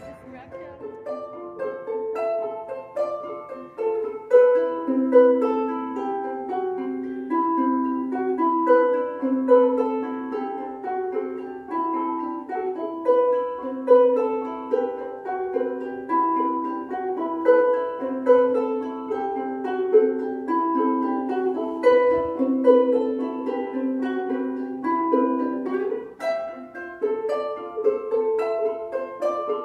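Ukuleles playing a picked tune: a continuous run of plucked notes with some sounding together.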